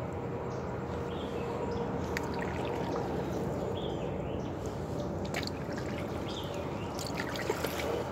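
Kayak paddle strokes: water trickling and dripping off the paddle blades as it dips and lifts, with a few sharp ticks near the end.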